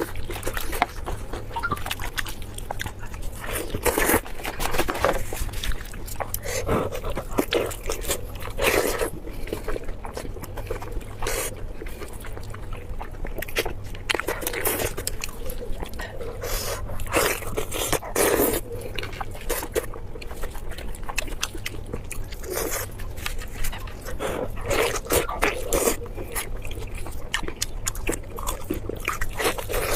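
Close-miked chewing and mouth sounds of a person eating spicy pork belly, with irregular sharp clicks and wet smacks, over a low steady hum.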